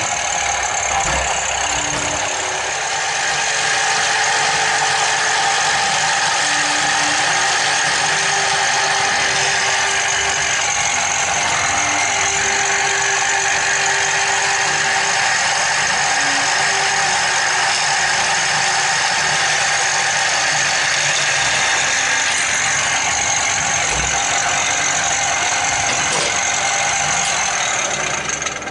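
Electric motor of a homemade bench drill running steadily with a high whine, stopping abruptly near the end.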